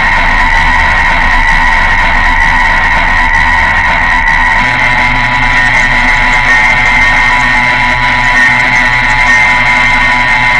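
Experimental harsh-noise drone music: a loud, dense, unchanging wall of distorted noise with steady held tones layered through it. About four and a half seconds in, the bass drone steps up in pitch and carries on.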